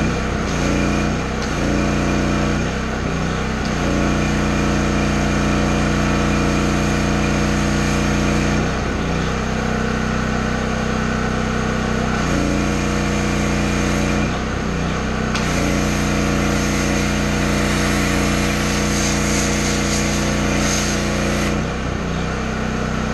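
Small petrol engine of a pressure washer running at a steady speed, its pitch dipping briefly about six times and recovering.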